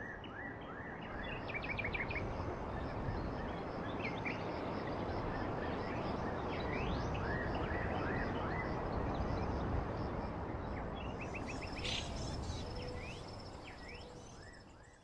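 A flock of birds calling, many short rising chirps and calls, over a steady outdoor rushing noise. The whole sound fades in at the start and fades out near the end.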